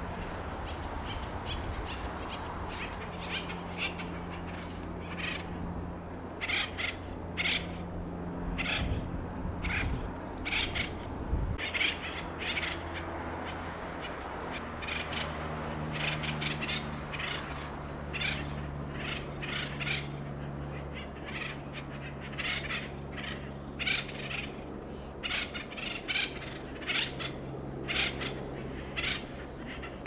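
Acorn woodpeckers calling: many short, harsh calls, few at first and coming thick and fast after about five seconds, over a steady low hum.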